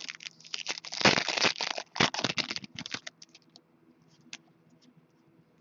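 Trading cards and a foil pack wrapper being handled: a dense crinkling, clicking run for about three seconds, then a few light clicks.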